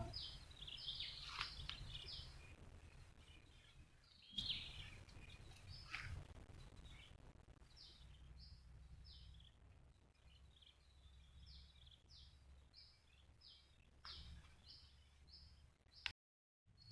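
Faint outdoor quiet with a bird giving short, high, down-slurred chirps, repeated in runs of a few a second. A couple of soft rustling bumps come about four and six seconds in.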